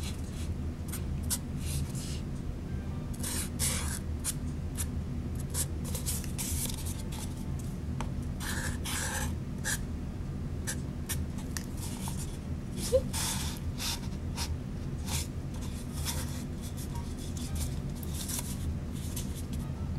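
Felt-tip marker drawing short strokes on a paper cup, a run of brief scratchy squeaks as little leaves are drawn, over a steady low hum.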